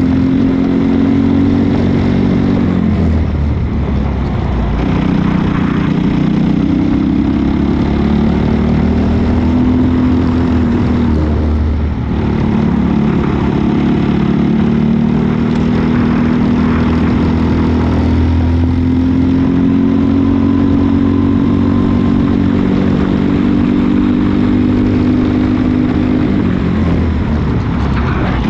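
Briggs & Stratton LO206 four-stroke kart engine at racing speed, heard from on board: the engine pitch climbs steadily along the straights and drops away when the driver lifts for corners, several times over.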